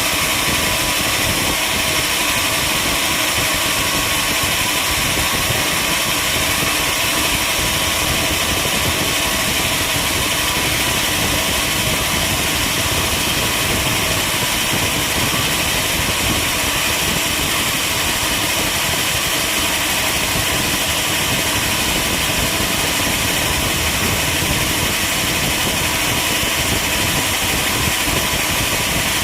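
Sawmill machinery running steadily, a loud, even mechanical drone with no let-up.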